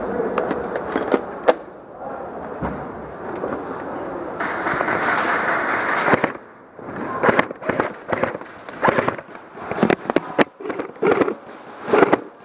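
Scattered sharp pops of airsoft guns firing, over rustling and handling noise from a moving player. About four seconds in there is a steady hiss that lasts under two seconds.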